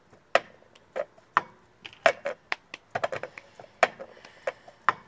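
Cup-song rhythm played on a blue plastic cup and a tiled mosaic tabletop: sharp hand claps and knocks of the cup on the table in a repeating pattern.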